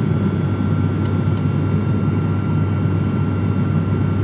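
Airliner engines and airflow heard from inside the passenger cabin: a steady low drone with a thin, steady whine above it.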